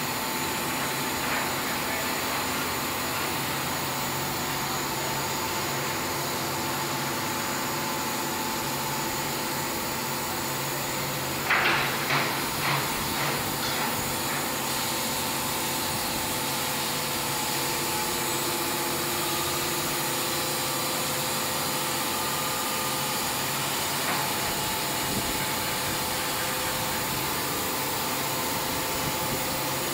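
Wood-Mizer WM3500 sawmill running with a steady mechanical hum, broken about twelve seconds in by a short cluster of sharp knocks.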